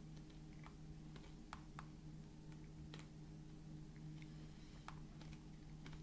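Near silence: a steady low hum under faint, irregular small clicks, about a dozen of them scattered through the quiet.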